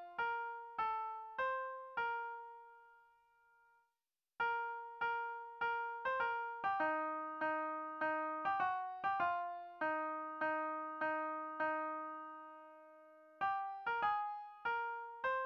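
Computer MIDI piano playback of a single hymn melody line, one note at a time, each note struck and fading. It drops out briefly about four seconds in, then resumes, with a few long held notes later on.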